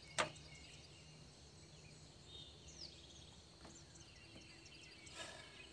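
Quiet lakeside ambience with faint, scattered bird chirps, and a single sharp knock just after the start.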